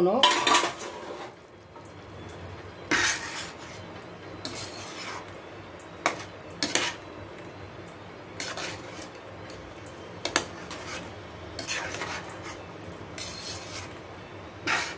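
Spatula scraping and knocking against a metal pan while stirring boiled eggs through thick curry gravy, in irregular strokes a second or two apart.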